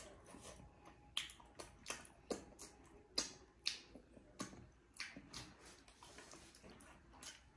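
Close-up mouth sounds of eating buff meat and rice by hand: a dozen or so wet lip smacks and clicks at an irregular pace as she chews and licks her fingers.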